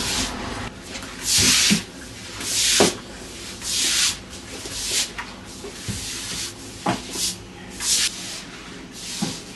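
Bristle broom sweeping floodwater across a wet floor. There are repeated scraping strokes, about one a second, some starting with a light knock as the broom meets the floor.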